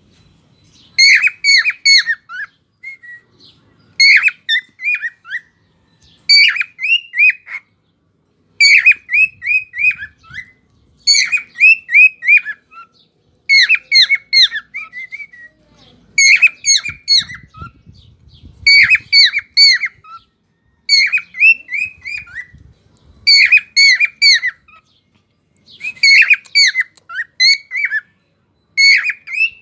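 Cockatiel calling in repeated bouts about every two and a half seconds, each a quick run of four or five short, high notes that slide down in pitch.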